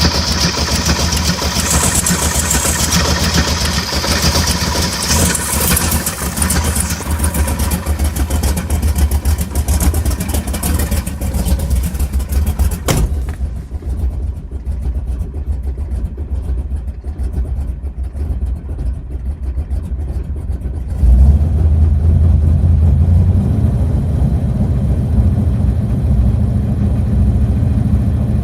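Big-block Chevrolet 396 V8 engine running, with an odd noise that the owner feels isn't right. A sharp click about halfway through. The engine gets louder and deeper about three quarters of the way through and stays that way.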